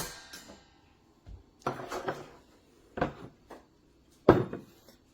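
Four separate knocks and clatters of kitchen items being handled and set down on a countertop, the first with a brief metallic ring.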